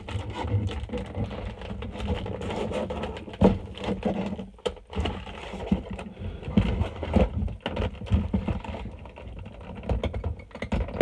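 Toy packaging being pulled apart by hand: cardboard and clear plastic rustling, scraping and knocking irregularly.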